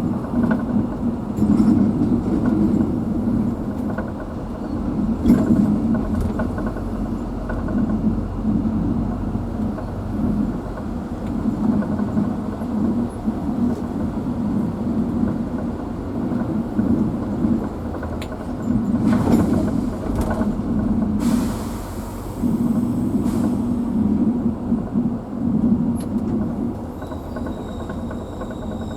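Engine and road noise of a moving vehicle heard from inside, a steady low drone with a few knocks and rattles over the rough road.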